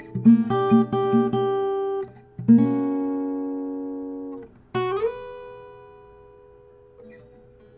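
Solo acoustic guitar played fingerstyle: a quick run of picked notes, then a chord left to ring for about two seconds, then a single note that slides up slightly and fades away slowly.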